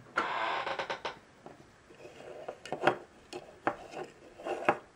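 Hands handling a small plastic TARDIS model on a wooden tabletop: a rubbing scrape about the first second, then several light knocks and clicks of plastic against wood.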